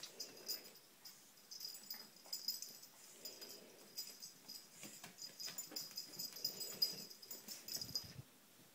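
Pug puppy barking in runs of short, high-pitched yaps with brief pauses, objecting to a heart-shaped bowl it is wary of.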